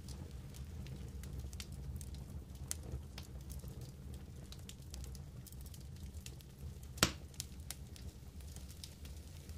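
Campfire crackling under a wire grill basket of pork kebab meat, with scattered small pops and one sharper, louder click about seven seconds in, over a low steady rumble.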